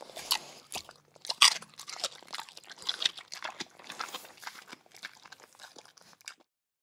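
Irregular crunching and chewing, like something being bitten and eaten, growing fainter and stopping shortly before the end.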